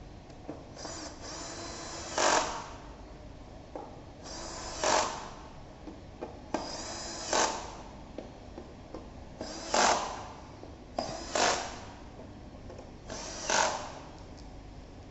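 Small electric screwdriver running in six short bursts a couple of seconds apart, driving the small screws of a VR headset's housing.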